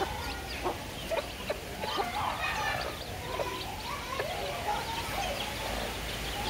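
Chickens and chicks calling while they feed: a steady stream of short clucks and peeps from several birds, overlapping.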